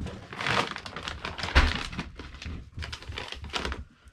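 Rummaging inside a large cardboard shipping box: packaging rustling and crackling with scattered knocks, and a dull thump about a second and a half in.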